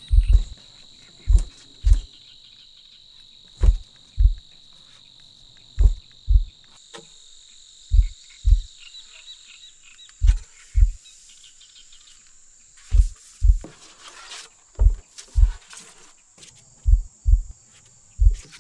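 Insects trilling steadily at a high pitch, one of the trills dying away about halfway through. Over them, slow pairs of deep thumps, like a heartbeat, come about every two seconds and are the loudest sound.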